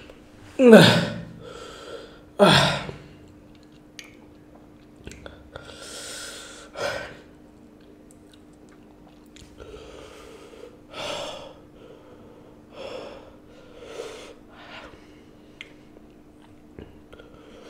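A man's pained vocal reactions to the burn of extremely hot chili chips: two loud falling cries in the first few seconds, then quieter heavy breaths, puffs of air blown out and sniffs.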